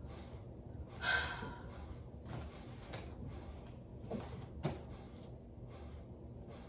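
Soft handling of vinyl record sleeves in a cabinet: a few faint knocks and rustles. A short breath is heard about a second in.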